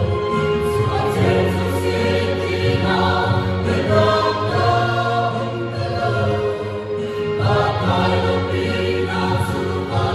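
Mixed choir of men's and women's voices singing together in parts, holding long notes and moving from chord to chord.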